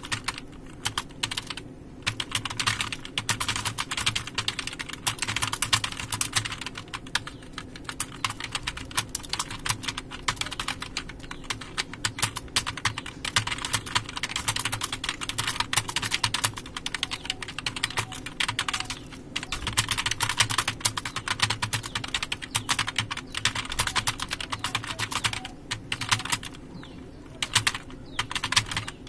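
Computer keyboard being typed on continuously, a rapid stream of key clicks with a few brief pauses, the longest near the end.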